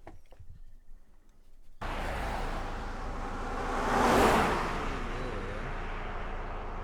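A few faint clicks, then a sudden change to steady road-traffic noise, with a vehicle passing whose sound swells and fades about two seconds later.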